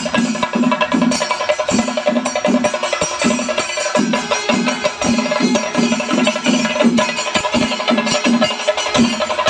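Kerala temple percussion ensemble playing a fast, even rhythm of sharp drum strokes with cymbals, over a steady held tone.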